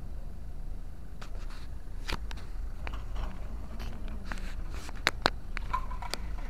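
Clicks and scrapes of a handheld camera being handled and carried, over a steady low rumble. The clicks come thicker and louder in the last two seconds.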